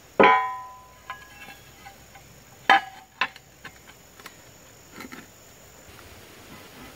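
Pieces of ceramic floor tile clacking against a rusty steel I-beam as they are set down and shifted into place. There is a loud ringing clack just after the start, another about two and a half seconds in, and a few lighter clicks and taps between.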